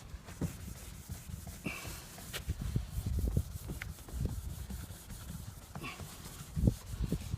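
Rubbing compound being worked by hand into scratched car paint: irregular rubbing and scuffing strokes, with a couple of brief squeaks.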